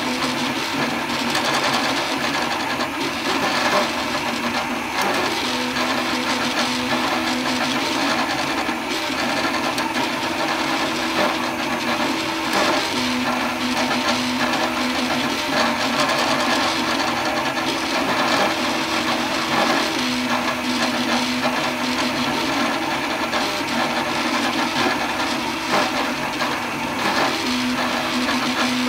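3D printer printing: its stepper motors whine in short tones that come and go as the print head moves back and forth, over the steady whir of the print head's cooling fan.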